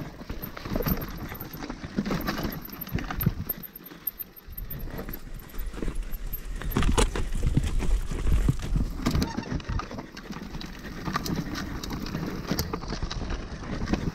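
Hardtail mountain bike rattling and clattering over rough, rocky trail: tyres on dirt and rock, with the bike knocking over each bump. A stretch of heavier low rumble comes about halfway through.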